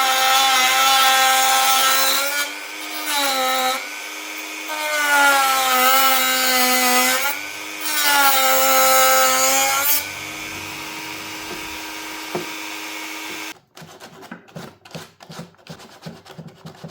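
Small high-speed power tool trimming the broken plastic headlight bracket flat, cutting in four loud spells with its whine sagging in pitch as it bites. It then runs lighter and steadier before stopping about 13 seconds in, followed by faint scraping and handling sounds.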